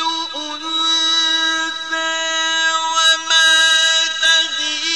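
Male Quran reciter's voice in the mujawwad style, drawing out a long melismatic passage: held notes that step between pitches with small ornamental turns.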